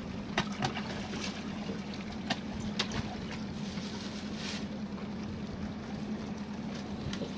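A boat's motor running steadily with a low hum, over a wash of water noise, with a few sharp clicks scattered through it.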